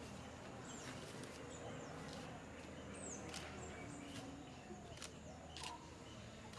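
Quiet garden ambience with short, high, falling bird chirps scattered through it and a few sharp clicks.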